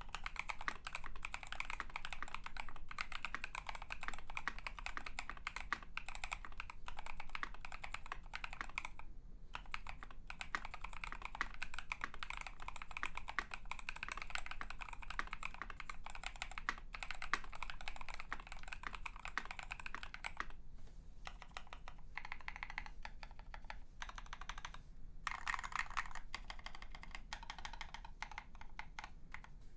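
Continuous typing on a KBD67 MKII polycarbonate-case mechanical keyboard with lubed NovelKeys Cream linear switches, foam-dampened, under KAT-profile blank keycaps: a dense run of quick key strokes broken by a few brief pauses.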